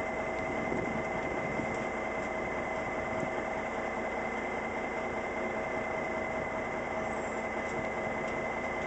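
Western Star dump truck's diesel engine idling steadily, with a constant high whine over it.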